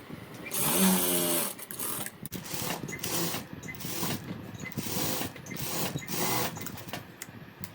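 Sewing machine stitching in short runs, its sound surging and easing roughly every half second to a second, as it sews a top stitch along a blouse's folded edge.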